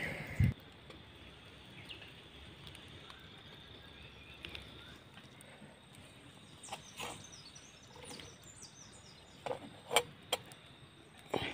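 A few sharp knocks and clinks as a small lidded metal pot is hooked with a green bamboo stick and lifted off the embers; the loudest comes about ten seconds in, with a quick cluster of them near the end. Faint high bird chirps in the background.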